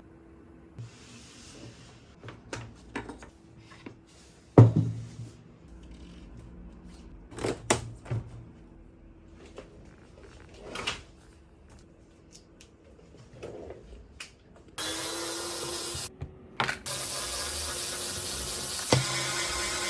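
Scattered knocks and clicks of tools and parts being handled, the loudest about five seconds in. Then, from about fifteen seconds, a steady loud hiss with a short break: compressed air blowing dust out during cleaning.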